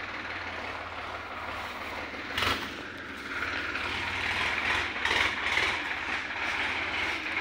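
Sonalika Sikandar tractor's diesel engine running, with one sharp clank about two and a half seconds in. The engine grows louder from about three seconds on.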